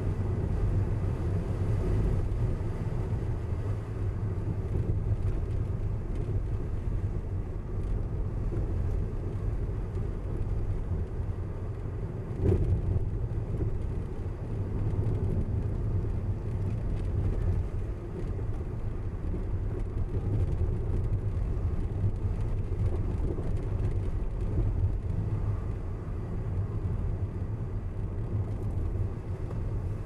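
Car driving along a road: a steady low rumble of tyres and engine, with a single thump about twelve seconds in.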